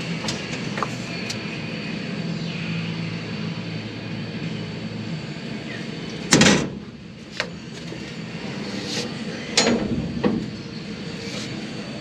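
A steady mechanical hum with several loud door-like bangs: a big one about six seconds in and two more near ten seconds.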